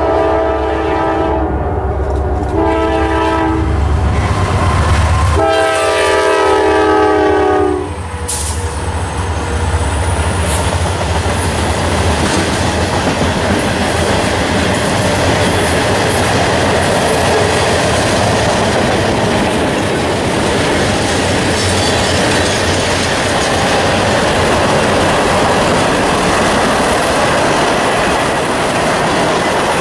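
Norfolk Southern freight locomotive's air horn sounding three times: a blast that ends about a second in, a short one, then a long one ending about eight seconds in, over the low rumble of the diesel locomotives. After that the freight cars roll past with a steady loud noise of wheels on rail.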